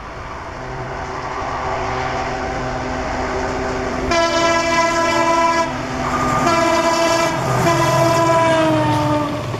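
Indian Railways diesel locomotive approaching with a passenger train, its running noise growing steadily louder, then sounding its multi-note horn: a short blast about four seconds in, and a longer one from about six and a half seconds that dips in pitch slightly near the end.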